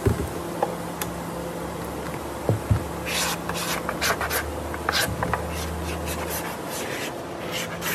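Hands handling and rubbing a plastic chair seat shell, with a few low knocks early on and then a run of short scratchy rubbing noises from about three seconds in, over a steady low hum.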